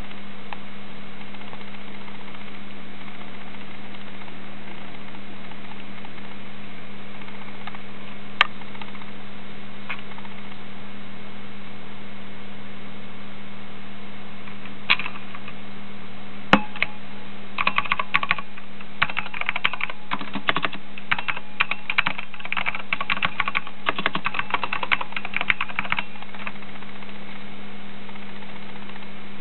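Keystrokes on a mechanical keyboard fitted with Alps SKCL Green switches on a steel plate: a few single key presses, then about eight seconds of fast, continuous typing from a little past the middle. A steady low hum runs underneath.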